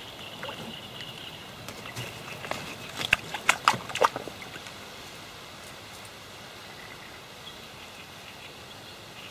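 A handful of sharp clicks and knocks from an angler handling his catch and tackle, bunched about three to four seconds in, over a quiet steady outdoor background with a faint high whine.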